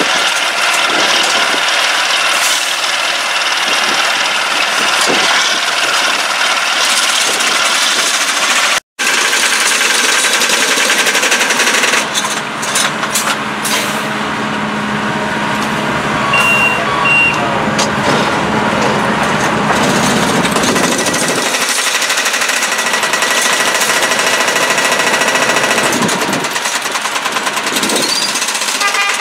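Railroad tie-gang track machines working: diesel engines and hydraulics running, with repeated metallic knocks and two short beeps about halfway through.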